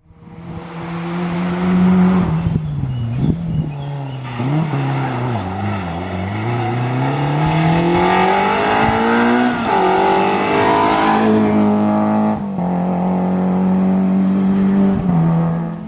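Peugeot 205 rally car's four-cylinder engine at high revs. The pitch falls away a few seconds in, then climbs steadily under acceleration, with two gear changes near the middle before it holds at a steady high note.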